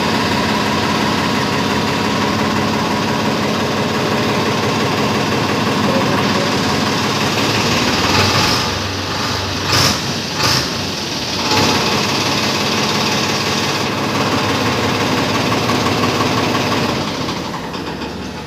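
Farmtrac 45 Powermaxx tractor's three-cylinder diesel engine running steadily at idle just after starting, with two brief louder noises about ten seconds in; the sound gets quieter near the end.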